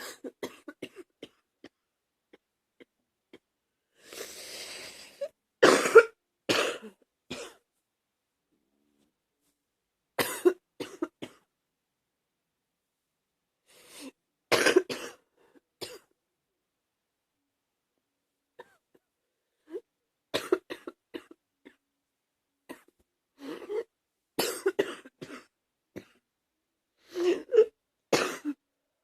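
Human coughing in repeated bouts of two to four coughs, a few seconds apart, with a drawn-in breath before the first bout. It is a chest cough from a viral infection that has moved down into the chest.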